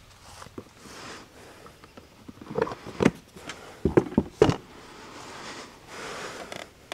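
Clunks and knocks of a Yamaha Banshee quad's seat being unlatched and lifted off, several sharp knocks in quick succession about halfway through, with rustling before and after; the engine is not running.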